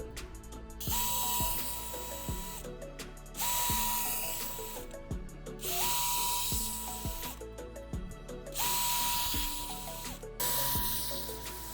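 A power tool running in five short bursts of about a second and a half each, with a steady motor whine through each burst, over background music.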